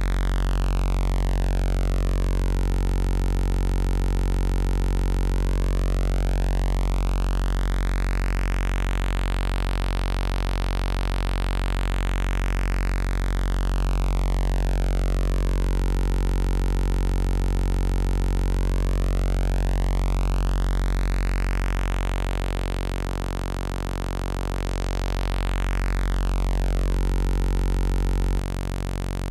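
Zebra 2 software synthesizer holding one low, buzzy note with many overtones while its waveshaper reshapes the tone. The colour of the sound sweeps slowly down and up, twice over, like a phaser. Near the end the tone changes abruptly and the bass drops away.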